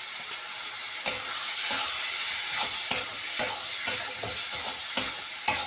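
Onion-tomato masala frying with a steady sizzle in a metal kadhai as a wet spice paste is stirred in, the sizzle rising about a second in. A metal spatula scrapes and clinks against the pan with each stroke.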